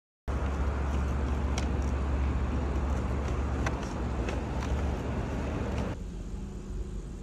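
Car on the move: steady road and engine noise with a heavy low rumble and a few faint clicks, dropping to a quieter level about six seconds in.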